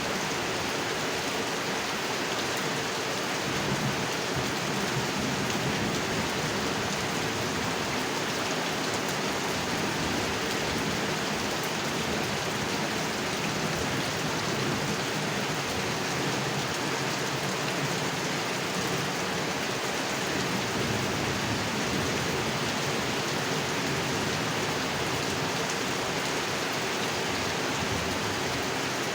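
Steady heavy rain falling onto a pond's water surface, an even, continuous hiss of drops.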